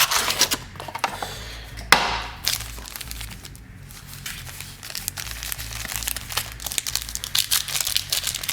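Plastic wrapper of a trading-card pack being torn open and crinkled, in a run of crackles with one sharp snap about two seconds in. It goes quieter for a couple of seconds in the middle, then crinkles steadily again near the end.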